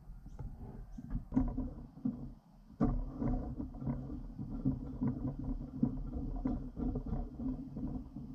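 Irregular clicks and metal handling knocks, then about three seconds in a power tool starts running steadily, with knocks and clatter over it.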